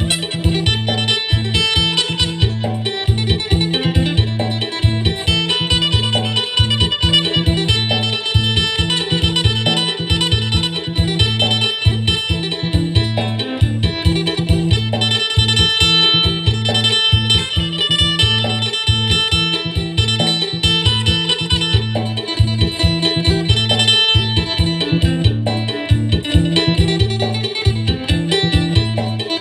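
Acoustic phin, the plucked lute of northeast Thailand, playing a clear-toned, fast 'sing'-style melody over a steady beat.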